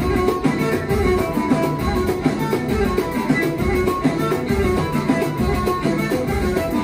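Live Moroccan chaabi band music, instrumental: violin and plucked string lines over a steady, driving drum beat.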